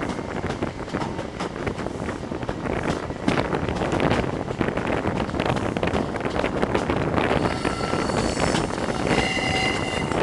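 High Speed Train running round a tight curve, heard from a coach window just behind class 43 power car 43166: steady engine, wheel-on-rail and wind noise. Near the end, several thin high-pitched squeals come in, typical of wheel flanges squealing on the curve.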